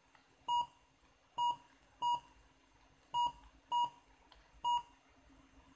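Touchscreen car navigation head unit beeping once per key press: six short beeps, all at the same pitch, spaced unevenly as a number is keyed in on its Bluetooth dial pad and the call button is pressed.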